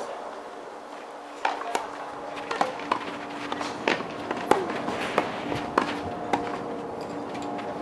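Tennis balls being struck by rackets and bouncing on the court during a doubles rally: a run of sharp knocks from about a second and a half in, with players' footsteps between them.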